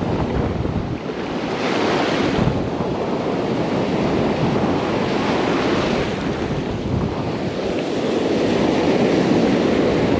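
Ocean surf breaking and foamy wash rushing through the shallows, swelling louder with each incoming wave, with wind buffeting the microphone.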